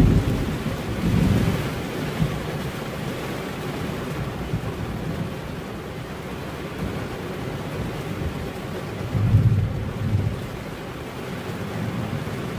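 Steady rain falling, with low rolls of thunder at the start and again about nine seconds in.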